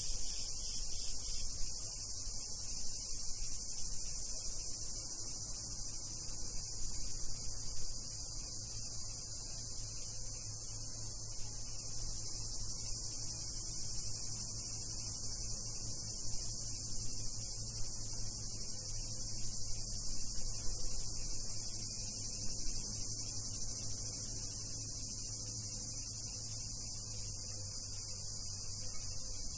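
Steady high-pitched chorus of cicadas buzzing without a break, over a low steady hum.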